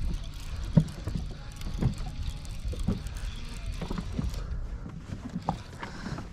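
Small waves slapping against a bass boat's hull about once a second, over a low rumble of wind on the microphone.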